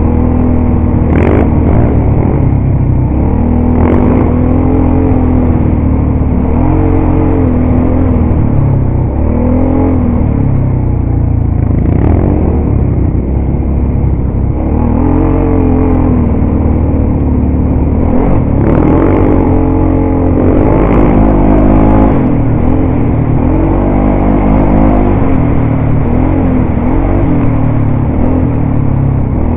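ATV engine running under way, its revs rising and falling over and over as the throttle is worked, with a few sharp knocks and clatter as the quad jolts over bumps.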